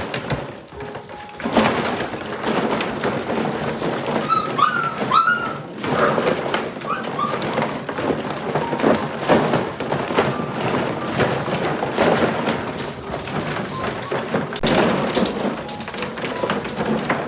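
Shepsky puppies scrambling and playing, a steady clatter of thumps, knocks and scratching paws, with a few short high yips about four to six seconds in.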